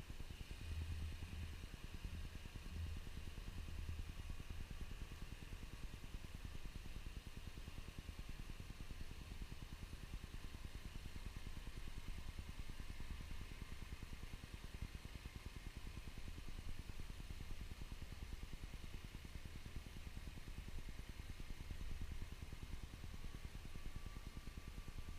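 Gas snowblower engine running steadily while clearing snow.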